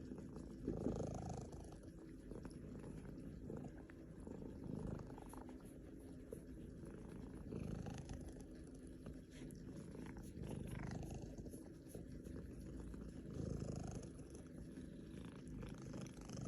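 A domestic cat purring steadily while being massaged, the purr swelling and easing every few seconds.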